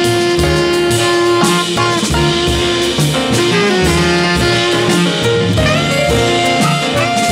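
Live jazz ensemble: tenor saxophone and bass clarinet play sustained melody notes over piano and double bass.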